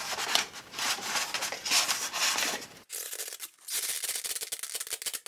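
Cardboard and paper packaging being handled as a boxed item is pulled out: rustling, scraping and rubbing, then a quick run of fine scratchy strokes near the end.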